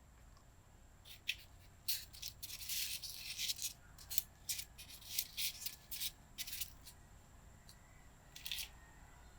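Crisp rustling and clicking of packaging being handled during an unboxing, in a quick run of short crackly bursts over several seconds, then one more burst near the end.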